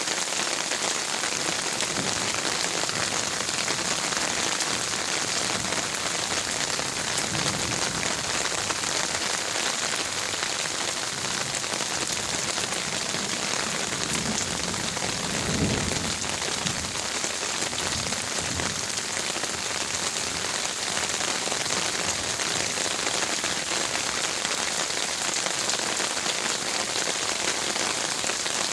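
Heavy rain falling steadily on garden leaves, a dense even hiss, with a brief low rumble about halfway through.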